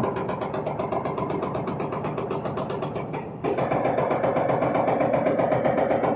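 Heavy diesel engine running steadily with an even, rapid pulsing beat. The sound changes abruptly and gets louder about three and a half seconds in.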